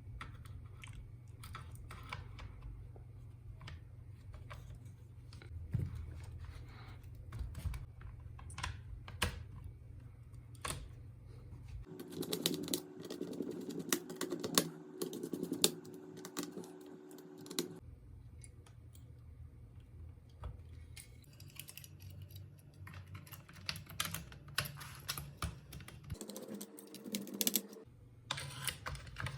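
Irregular light clicks and taps from hands working on an HP EliteBook 8470p laptop, like keys or small plastic parts being pressed. A steady hum comes in with a denser run of clicks for several seconds near the middle, and again briefly near the end.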